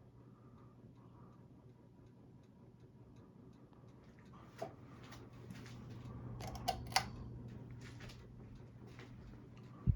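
Casablanca Lady Delta ceiling fan motor humming steadily, swelling a little in the middle, with scattered sharp clicks from about halfway on and a loud thump at the very end.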